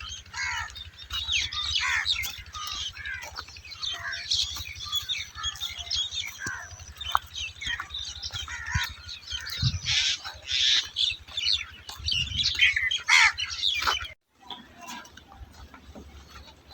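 A dense chorus of many small birds chirping and twittering over a steady low rumble; it drops away abruptly about fourteen seconds in.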